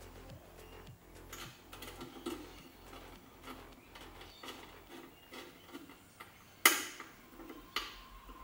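Small metallic clicks and ticks of a hex key turning M6 Allen-head bolts down into a metal intake plenum's base flange, with one sharp clack a little before the end.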